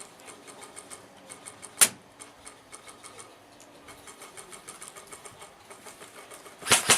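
Airsoft guns firing: faint rapid ticking of shots, one sharp crack just under two seconds in, and near the end a close, loud burst of rapid fire.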